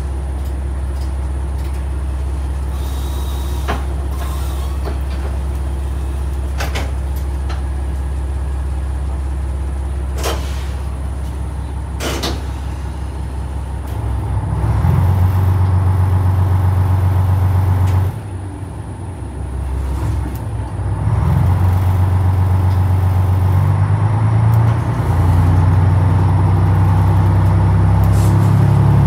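JR Shikoku 1000 series diesel railcar heard from its cab: the diesel engine idles steadily with a few sharp clicks, then is throttled up about halfway through as the railcar starts off. It eases for a moment and then pulls again.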